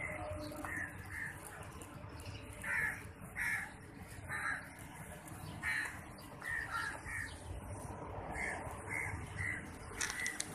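Crows cawing repeatedly: a run of short, separate caws, about a dozen in all, over a steady low background rumble.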